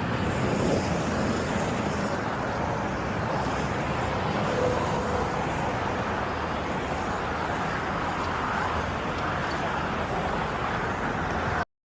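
Steady vehicle and road noise: an even rushing hiss over a low engine hum, unchanging, cutting out abruptly just before the end.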